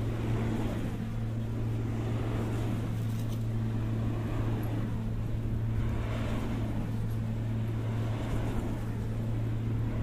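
Wind turbine running: a steady low hum under a light rush of wind.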